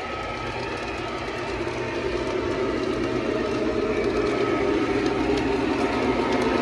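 LionChief model train locomotive running along the track, its motor and wheels making a steady whirring noise that grows steadily louder.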